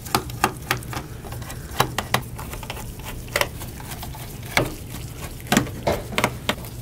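Irregular sharp clicks and light taps from handling the removed screws and the plastic bottom cover of a laptop during disassembly. There are several separate ticks, some in quick pairs, spread unevenly across the few seconds.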